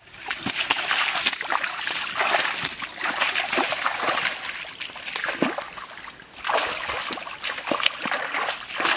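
Shallow stream water splashing and sloshing as hands grope and scoop through it and bare feet wade, in many irregular splashes over a running trickle.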